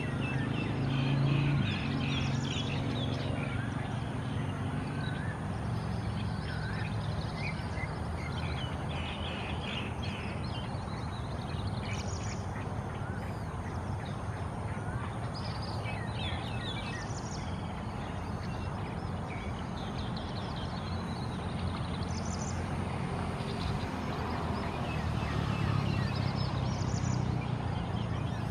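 Birds chirping and trilling on and off, over a steady low rumble and a faint, steady high-pitched tone.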